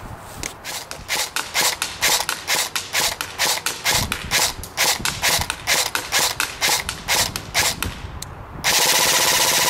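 Cybergun Colt M4 CQB electric airsoft rifle firing .25 g BBs in single shots, about three or four sharp cracks a second. Near the end it switches to a full-auto burst, a fast unbroken rattle.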